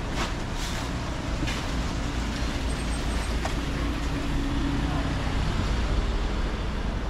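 City street traffic: a steady low rumble of passing road vehicles, with a faint engine hum midway through.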